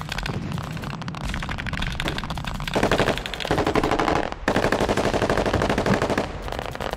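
Machine-gun fire in long automatic bursts, rapid shots close together, heaviest about three seconds in and again from about four and a half to six seconds in.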